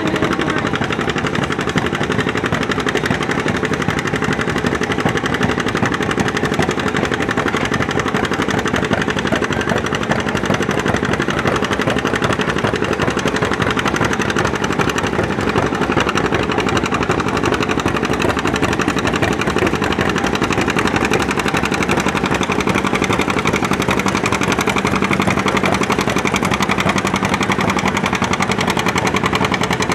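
John Deere two-cylinder tractor engine working hard under load, its exhaust popping in a fast, steady beat as it pulls the weight-transfer sled.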